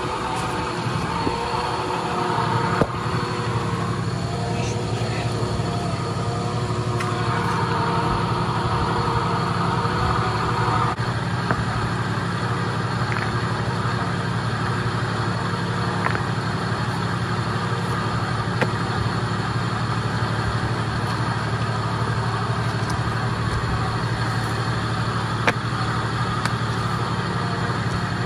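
Off-road vehicle engine idling steadily during a sand recovery, with a few sharp knocks.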